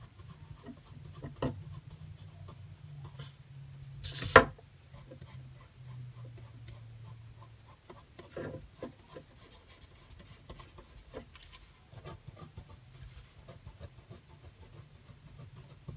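Pencil scratching on paper in quick, short repeated strokes, laying down hatching lines to darken a shaded area. A single sharp knock about four seconds in.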